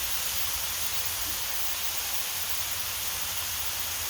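Smash burger patties and onions sizzling steadily on a cast iron griddle, an even hiss.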